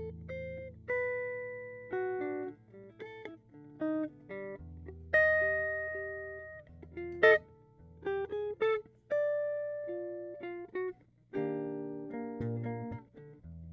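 Eastman AR580 archtop guitar playing a slow single-note melody, plucked notes ringing and fading one after another over held low bass notes.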